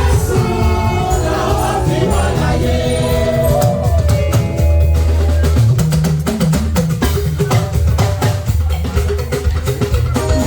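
Gospel music: voices singing together over drums and a heavy bass line. The singing is strongest in the first four seconds, after which the drums and bass carry on with sharp percussion strokes.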